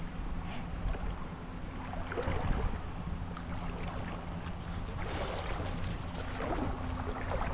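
Shallow creek water sloshing around wading legs, with scattered splashes as the wader steps over the rocky bed, under a low rumble of wind on the microphone.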